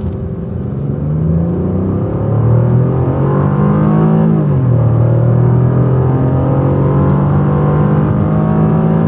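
2014 Chevrolet Impala's 3.6-litre V6 at full throttle, heard from inside the cabin. Its pitch rises as the car accelerates hard, drops as the automatic transmission upshifts about four seconds in, then climbs again.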